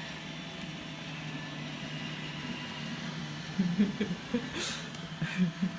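iRobot Roomba 805 robot vacuum running, a steady motor hum with a faint high whine from its brushes and suction. A few soft knocks and a brief swish come in the second half.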